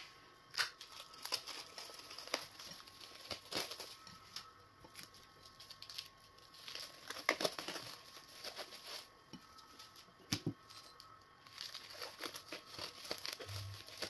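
Thin clear plastic bag crinkling and rustling as it is peeled by hand off a ball of semo fufu, in irregular crackles.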